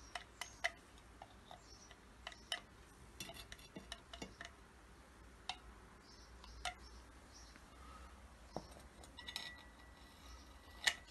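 Faint, scattered metallic clicks and clinks as an oil can's spout touches the bolts and pivots of a vintage Manchester Rapidor power hacksaw while it is oiled, with a sharper click near the end.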